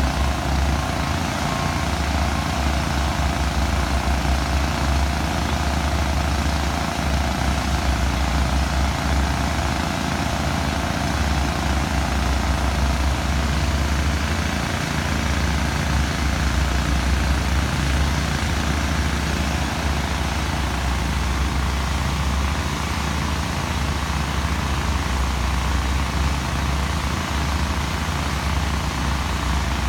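Construction machinery engines running steadily on a quarry floor, a constant low rumble.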